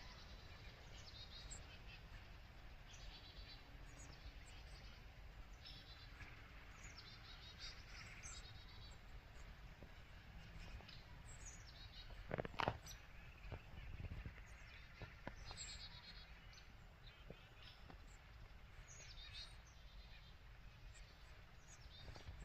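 Faint small songbirds chirping and trilling on and off. A couple of sharp clicks or knocks come just past halfway; they are the loudest sounds.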